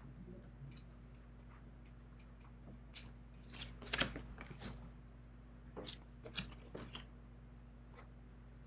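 Tarot cards being handled: the top cards of three decks lifted off and set down, giving a few scattered light taps and brushes of card stock in two clusters, over a faint steady hum.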